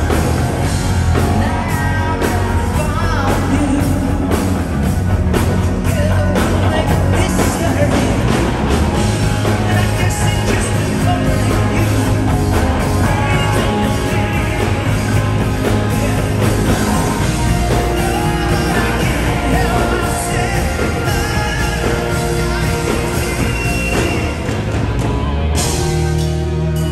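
Live rock band playing loudly: a lead vocal singing over drums, electric bass guitar and keyboards.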